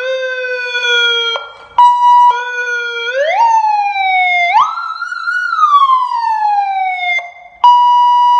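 Loud 100 W seven-mode electronic siren horn switching through its tones. It plays a low wail, a steady high tone, and a quick rise followed by long, slow falls in pitch, changing pattern abruptly every second or two.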